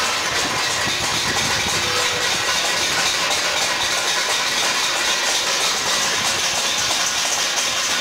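Dense, steady metallic clatter of many steel thali plates being beaten by people along a residential lane.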